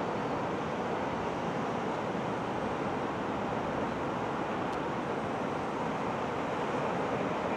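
Steady roar of jet airliner engines around the airport, an even rushing noise with no distinct whine or change.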